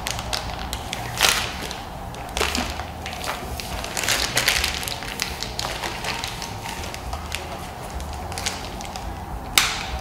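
Plastic piping bag filled with muffin batter crinkling and rustling in irregular bursts as hands press and squeeze it. A single sharp snap comes near the end, as a plastic bag clip is closed over its top.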